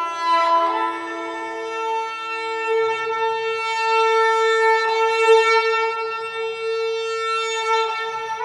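Esraj, a bowed Indian string instrument, playing long sustained notes. A higher note comes in under a second in and is held steadily, with a lower note sounding beneath it for the first few seconds.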